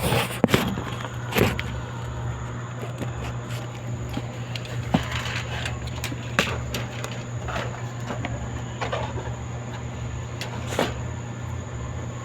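Scattered sharp clicks and knocks, a few seconds apart, over a steady low hum.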